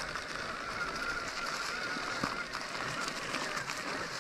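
E-mountain bike riding over a trail covered in dry leaves: steady tyre noise on the leaf litter, with a faint, slightly wavering whine from the electric motor.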